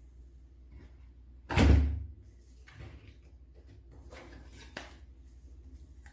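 Card-handling noises: a loud thump about one and a half seconds in, then a few softer taps and rustles as game cards are shuffled and set into the box.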